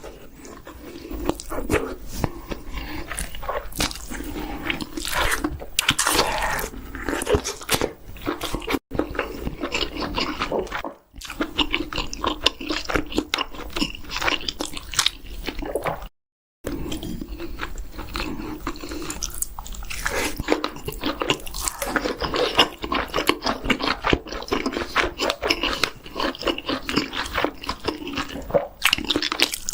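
Close-miked eating: someone biting into and chewing chicken with steady crunching, broken by a few brief silent gaps.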